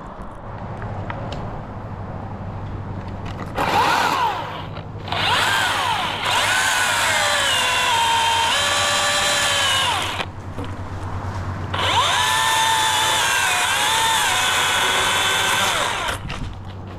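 Electric chainsaw cutting wood in three runs, a short one and then two of about four to five seconds each. Its high motor whine drops in pitch during each cut.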